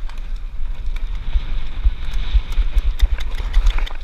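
Wind rushing over the microphone, with heavy uneven low thuds from running footfalls and the camera being jostled, as a paintball player sprints across grass to a bunker. A few sharp paintball marker shots crack near the end.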